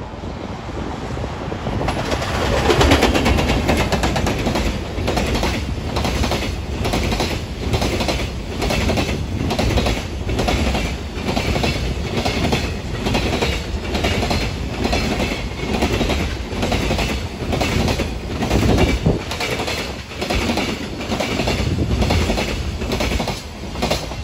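A JR Freight EF210 electric locomotive passing at speed, loudest a few seconds in, followed by a long train of container flatcars whose wheels clatter over the rail joints in a steady, even clickety-clack.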